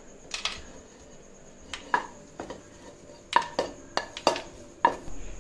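Metal spoon clinking against metal cookware while the cooked upma is stirred or served: a dozen or so irregular sharp clinks, each with a brief ring, the loudest in the second half.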